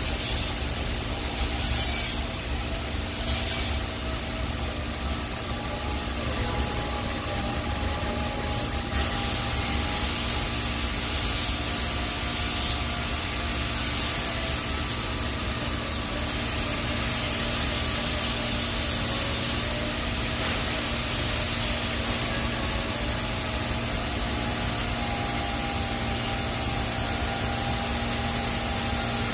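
TIG welding arc on stainless steel pipe hissing steadily during a root pass, over a steady electrical hum.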